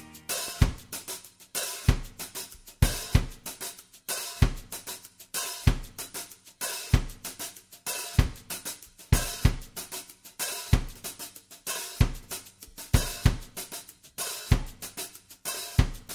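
Background music in a drum-only passage: a drum kit playing a steady beat of kick drum, snare and cymbals, with no other instruments.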